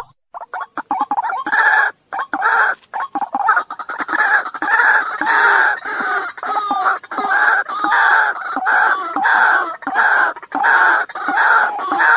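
White-breasted waterhen calling: a fast series of harsh, croaking 'ruak' calls, about two a second, that starts loosely and settles into a steady run after the first second and a half.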